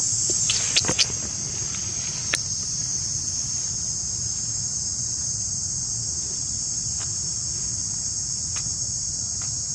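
A steady, high-pitched drone of insects, with a few sharp clicks in the first second and one more about two seconds in.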